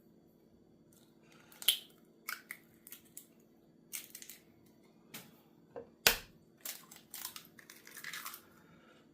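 Eggs being cracked by hand: a series of sharp knocks and crunches of eggshell, loudest about six seconds in.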